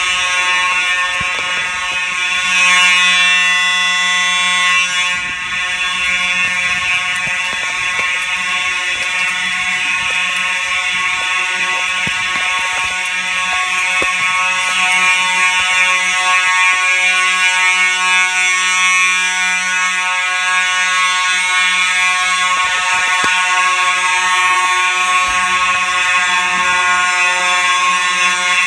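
Simplex fire alarm horn sounding steadily during a signal test: a loud, buzzing tone rich in overtones.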